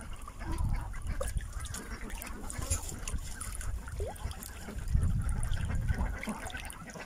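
Muscovy duck dabbling and drinking in a tub of water: splashing and trickling water with irregular low rumbling surges, the loudest about five seconds in. A few short, soft fowl calls sound from the flock.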